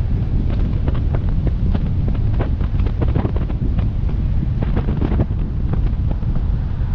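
Wind buffeting the microphone of a GoPro MAX on the outside of a moving car: a heavy, steady low rumble. Irregular sharp taps, several a second, of raindrops striking the camera.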